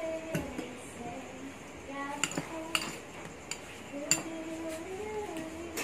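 Metal fork clinking and scraping against a small ceramic bowl while mixing ginamos with chili. The clinks are sharp and come a few at a time, spread irregularly.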